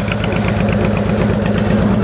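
Honda VTX1800's 1800 cc liquid-cooled V-twin idling steadily through a Vance & Hines exhaust, an even low pulsing beat. The motor runs nice and quiet, with a little volume on the exhaust.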